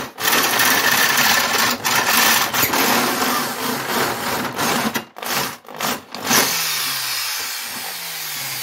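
Electric drill boring through a steel adaptor plate. It runs steadily under load, stops and restarts several times around the middle, and near the end the motor's pitch falls twice as it slows.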